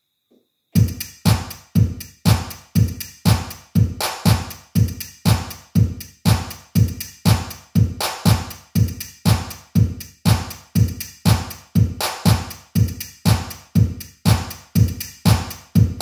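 Electronic drum-machine beat from a Roland Juno-DS synthesizer starting up a little under a second in: a heavy kick drum on every beat, about 1.7 beats a second, in a steady disco four-on-the-floor pulse.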